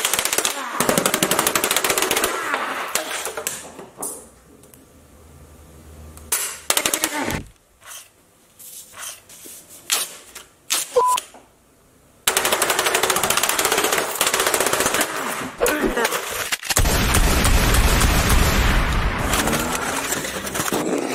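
A fast rattle of hits and crashes as a TV set is smashed. In the middle there is a quieter stretch with a few scattered knocks. From about three-quarters of the way in, a car engine's low rumble joins as the car drives over the broken set.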